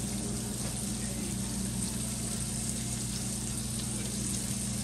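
Bacon pieces frying in a skillet, a steady even sizzle, over a steady low hum.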